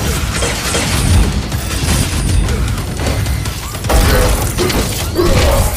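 Action-scene sound effects of a giant robot fight: a dense run of heavy metallic impacts, booms and crashes, loudest about four seconds in.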